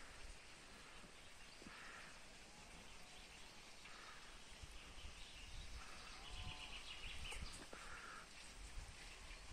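Faint rural outdoor ambience: short, soft bird-like calls about every two seconds, and one faint distant animal call a little past the middle, over a low wind rumble.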